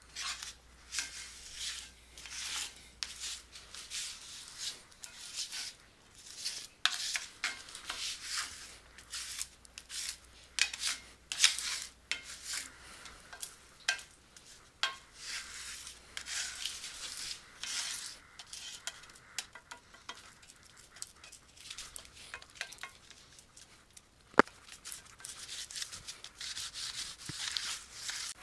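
Spatula repeatedly pressing and scraping sticky rice krispie treat mixture flat in a cast-iron skillet, a run of irregular crisp rustling strokes. A few sharp clicks of the spatula against the pan, one much louder than the rest near the end.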